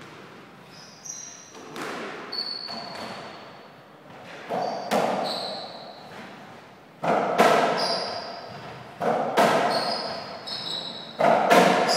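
A softraquet rally: the ball is struck and bounces in sharp knocks, mostly in pairs about half a second apart every two seconds or so, with athletic shoes squeaking on the court floor between hits. The hits echo in the hall.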